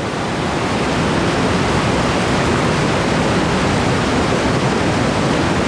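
Large waterfall on the Nzoia River thundering at close range: a loud, steady rush of falling, churning water.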